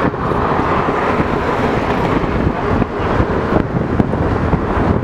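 Inside a moving LiAZ-677M bus: its ZIL-375 V8 petrol engine running under way, with road noise and many short knocks and rattles from the body.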